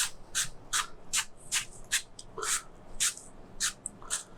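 A brush sweeping loose polymeric sand across a stone deck surface, about two to three short hissing strokes a second, clearing excess sand from the refilled joints.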